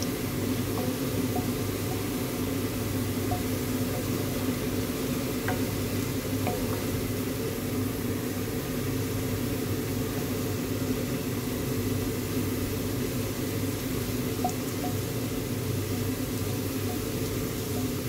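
Chopped red onions sizzling in hot oil in a pot as a wooden spoon stirs them, with a few faint ticks, over a steady low mechanical hum like a fan.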